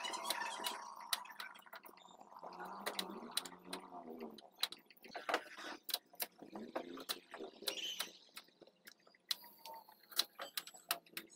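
Kitchen knife cutting white radish on a wooden chopping board: irregular sharp taps and clicks as the blade goes through the radish and strikes the board.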